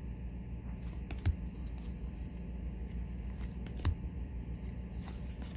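Trading cards being handled and flipped through, with a few light clicks about a second in and again near four seconds, over a steady low hum.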